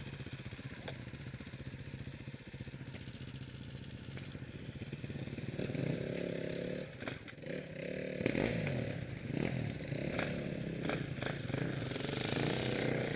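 Off-road motorcycle engines idling; from about halfway the engine note gets louder and rises and falls as a bike is revved, with several clattering knocks.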